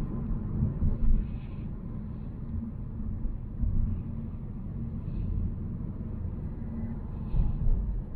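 Volvo C70 being driven: a steady low engine and road rumble, with a few brief louder thumps along the way.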